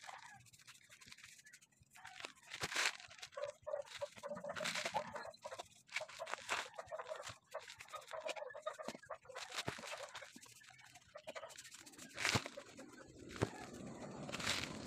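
A paintbrush applying wood stain to a wooden frame in short, scratchy strokes and dabs, with chickens clucking.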